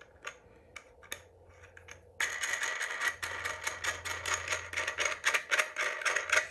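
Steel ground spike turned by hand through a metal base plate while its nut threads on, giving scattered light clicks at first, then a fast, continuous metallic clicking rattle from about two seconds in.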